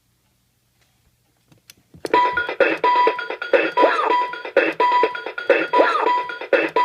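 Children's novelty alarm clock going off: after a click, a loud electronic alarm tune starts suddenly about two seconds in and loops, with a steady beep-like tone and sliding notes coming round every second or two.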